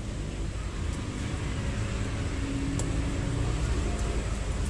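Steady low rumble of background noise, with a few faint metallic clicks as a watch bracelet's spring bar is worked back into place.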